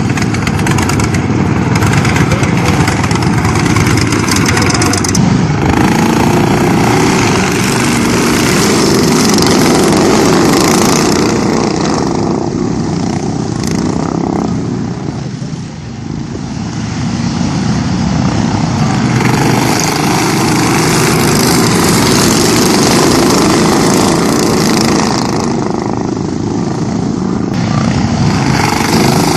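Racing lawn mowers' small Briggs & Stratton engines running hard at high revs. The sound dips briefly a little past halfway, then builds back up.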